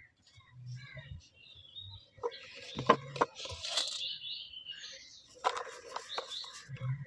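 Dry cement balls being crushed, with a few sharp cracks about three seconds in and a run of fine crackling near the end.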